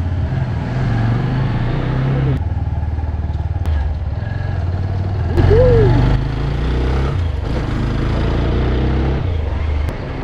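TVS Apache RTR motorcycle engine running as the bike rides off, its note shifting with the throttle and gears, with a short louder rev about halfway through.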